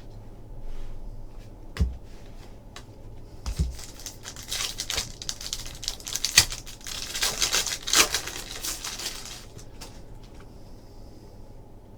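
A trading card pack's wrapper being torn open and crinkled for about five seconds, after two knocks on the table.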